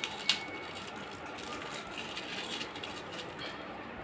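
Foil-lined paper carton being torn and peeled by hand off a frozen ice pop, crinkling, with one sharp snap near the start.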